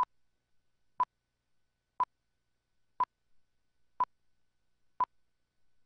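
Countdown leader beeps: six short, identical beeps at the same pitch, one each second, marking the seconds of a slate countdown before a commercial.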